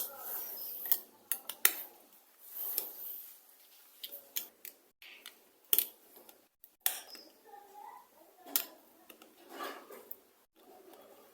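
Irregular clicks, taps and light clatter of small hard plastic and metal parts being handled and pressed into place as a keypad mobile phone is put back together.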